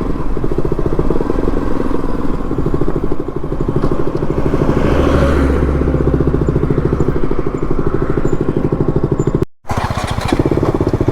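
KTM single-cylinder motorcycle engine running steadily with an even, rapid firing pulse. The sound cuts out briefly about nine and a half seconds in, then resumes.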